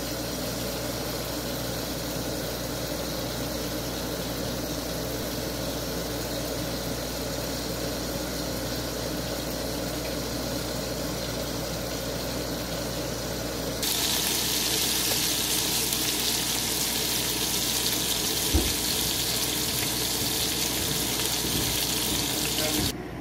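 Water boiling hard in a steel pot of potatoes, a steady bubbling. About fourteen seconds in it gives way to meat patties frying in oil in a pan, a louder, brighter sizzle with a single knock partway through.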